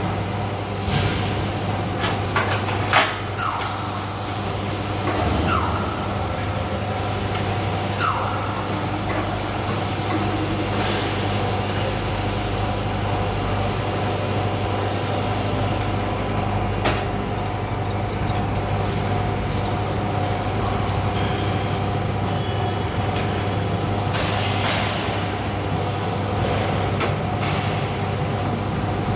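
Steady industrial machinery drone with a constant low hum, and a few metallic clanks and brief squeaks in the first several seconds.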